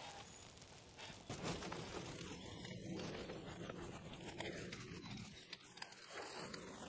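Faint rustling and light clicks of a bicycle saddle and its seat clamp being handled and fitted onto a seat post.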